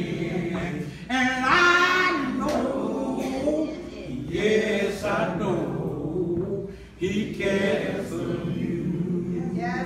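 A man singing a gospel song unaccompanied, holding long, drawn-out notes, with a dip near the seven-second mark before he sings on.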